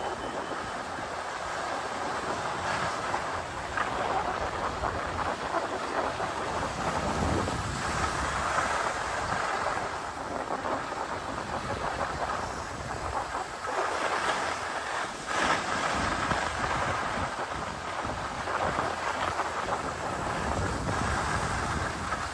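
Skis running over packed, groomed snow, a continuous scraping hiss that swells and eases as the skier turns, with wind rumbling on the microphone.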